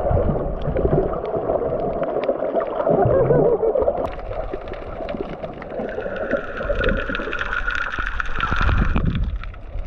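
A boat motor running amid water noise. About six seconds in, a higher steady tone joins, and a lower tone slowly falls in pitch until near the end.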